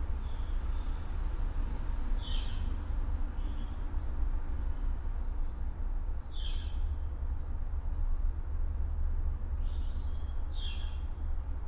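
Suburban morning ambience: a bird gives three short harsh calls about four seconds apart, with softer chirps from other birds between, over a steady low rumble.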